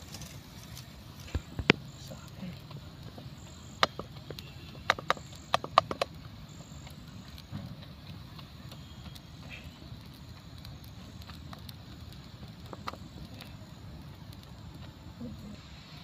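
Small wood fire under a frying pan of noodles crackling: a dozen or so sharp pops, several close together around five to six seconds in, over a steady low rumble.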